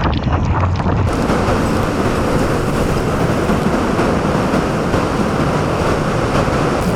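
Typhoon wind blowing hard and steadily with driving rain, a dense rushing noise. About a second in, it becomes brighter and fuller.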